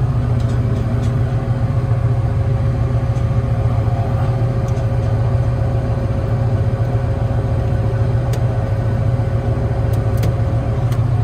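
Tractor engine running steadily at idle, a constant low hum with a steady higher tone over it. A few faint clicks come in the second half.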